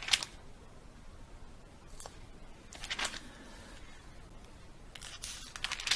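Bible pages being leafed through: a short rustle at the start, more about three seconds in, and a quick run of rustles near the end.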